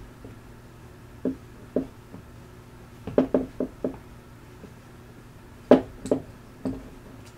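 Scattered light knocks and clicks from the pistol and a screwdriver being handled while a grip screw is tightened: single knocks about a second in, a quick run of four about three seconds in, and the loudest knock near six seconds, followed by two more.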